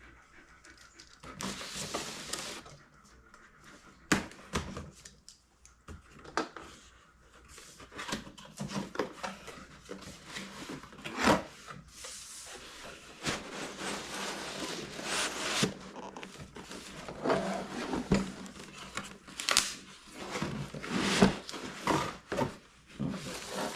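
Rustling, scraping and knocking of cardboard and plastic packaging being handled, with scattered sharp clicks and taps.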